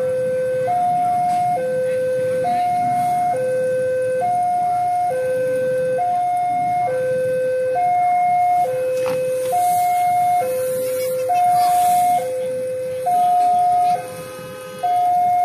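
Railway level-crossing warning alarm sounding a steady two-tone signal, a lower and a higher tone alternating just under once a second, the warning that a train is approaching the crossing.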